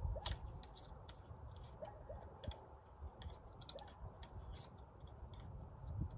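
Scattered light clicks and taps as a cleaning rod and patch are handled at the muzzle of a muzzleloader barrel, irregular and quiet, over a faint low rumble.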